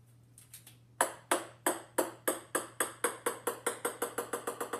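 A series of short ringing pings starting about a second in, coming ever faster and fainter.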